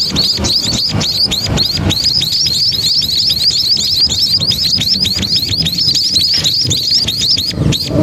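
Munia (burung pipit) nestlings begging in the nest: a rapid, unbroken stream of thin, high chirps, about five or six a second, over a low rumble.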